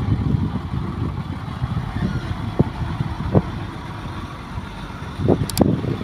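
Diesel engine of a 5-ton cabover dump truck running as it drives slowly over a rough dirt track, a steady low rumble with a few dull knocks from the truck as it rides the bumps. Two quick sharp clicks near the end.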